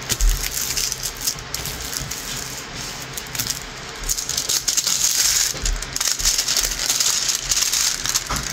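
Crinkling and rattling of plastic as a diamond painting kit's canvas and packaging are handled, louder for a stretch about four to six seconds in.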